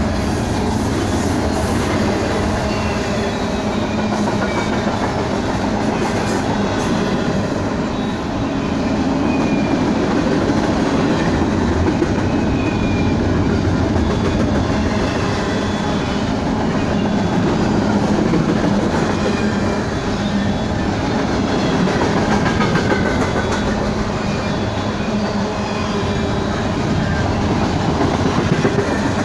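A double-stack container train's well cars rolling past: a steady rumble and clatter of steel wheels on the rails.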